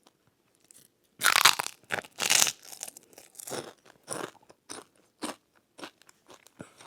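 Biting into a big crunchy snack: two loud crunching bites a second or so in, then steady chewing with shorter, softer crunches about twice a second.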